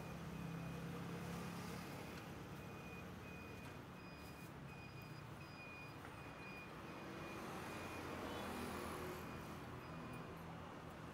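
A vehicle engine running in the street, with a high electronic beep repeating about twice a second, like a reversing alarm.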